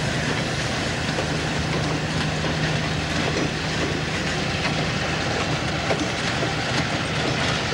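Diesel switcher locomotive running steadily as it passes close by, hauling a loaded log car, its engine a steady low drone over the noise of the wheels on the rails.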